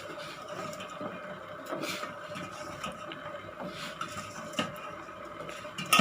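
Soya chunks boiling in a pot of water over a steady background hum, with a few light knocks; the loudest knock comes at the very end.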